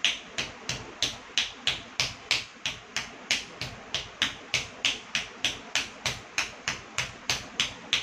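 Bare feet stamping on a tiled floor in classical Indian dance footwork, a steady, even beat of sharp slaps about three a second.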